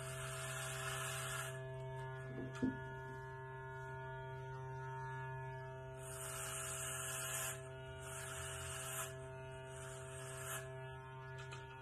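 Corded Wahl hair clippers running with a steady electric buzz, the blades hissing brighter on several passes through short hair on the scalp. A short knock about two and a half seconds in.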